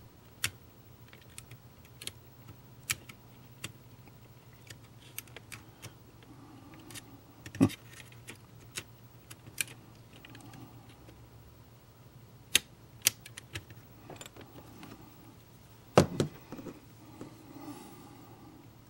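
Hand punch pliers being worked against a model passenger car's metal floor and brass eyelet: scattered small metallic clicks and taps at an uneven pace, with two sharper knocks about 8 and 16 seconds in.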